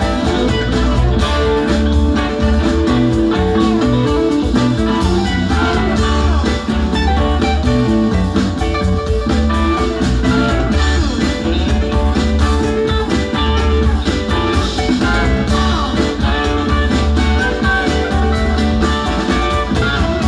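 Live rock band playing an extended jam: electric guitars lead over organ, bass and drums.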